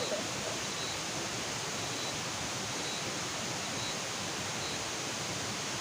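Steady hiss of outdoor night ambience by a swamp, with a faint short high chirp repeating about once a second.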